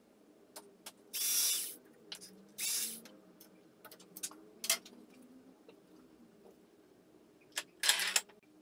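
A bark-covered log blank being clamped in a wood lathe's four-jaw chuck: three short rasping scrapes and a few sharp clicks of metal and wood handling, the loudest scrapes near the start and near the end.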